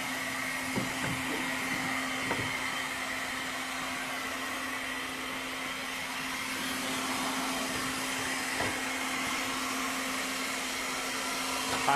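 Vitamix blender running steadily, grinding dried rosemary, thyme and sage in its dry container, a constant motor hum with a high whine over it.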